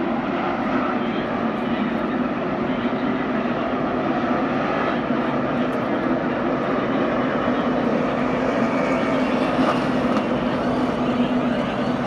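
A field of NASCAR Cup stock cars' V8 engines droning steadily together as the pack files in line toward and onto pit road for pit stops.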